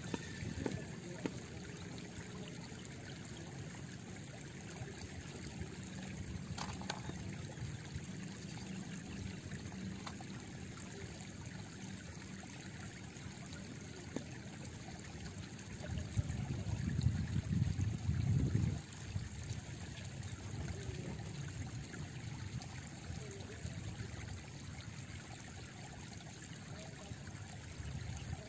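Quiet river water trickling and lapping at a stony bank, steady and faint, with a low rumble that swells for about three seconds a little past the middle.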